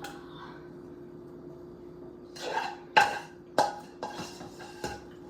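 A utensil scraping and knocking against a pan while food is scooped out: a scrape a little over two seconds in, then four sharp clinks over the next two seconds, over a faint steady hum.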